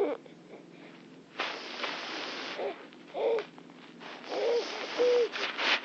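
Seven-month-old baby laughing: long breathy, gasping laughs broken by short high squeals.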